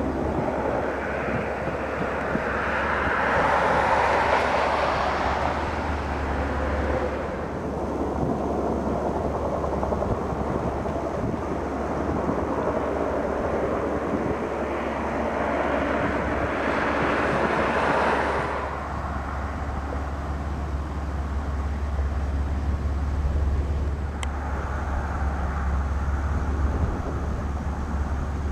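Firefighting aircraft flying low overhead, over a steady low rumble. The noise swells and fades twice, about four seconds in and again about seventeen seconds in, as aircraft pass.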